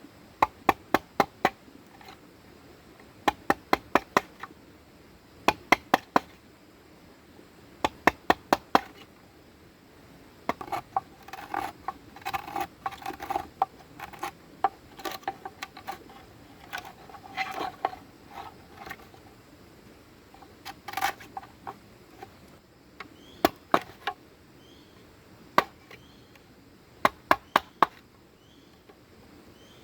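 Bamboo being struck with a hand tool in quick bursts of four or five sharp blows, with a stretch of rougher cracking and scraping on the wood in the middle.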